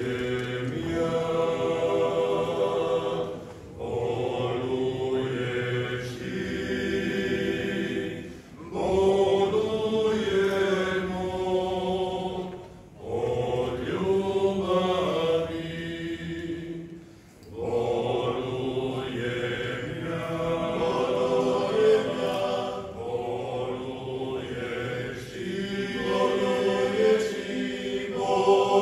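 Dalmatian men's folk singing group singing a cappella in close multi-part harmony. The song moves in phrases of a few seconds each, with short pauses between them.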